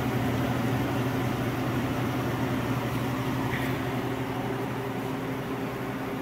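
Kitchen range hood exhaust fan running: a steady whir with a low hum, slowly getting a little quieter.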